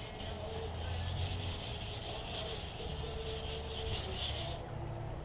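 320-grit wet-and-dry sandpaper on a hand sanding block, rubbed back and forth over a wet, primed car roof: a rasp stroke after stroke that stops about four and a half seconds in. This is wet sanding of primer and spray putty before the top coat.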